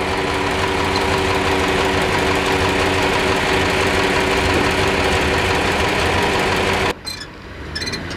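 John Deere 4020 tractor engine being turned over as the tractor is tow-started behind a pickup truck, a steady, even engine sound. It cuts off suddenly about seven seconds in, leaving quieter scattered clicks.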